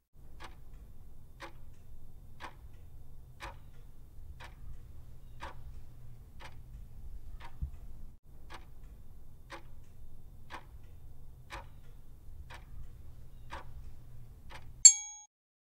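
Countdown-timer clock-ticking sound effect: a tick about once a second over a low steady hum. A short bright ding sounds near the end as the timer runs out.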